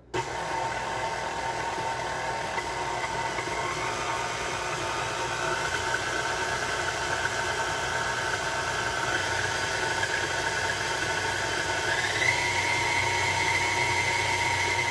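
KitchenAid Artisan stand mixer switched on and running, its flat beater whipping cream cheese frosting in the steel bowl: a steady motor whine over a hum that steps up in pitch about twelve seconds in.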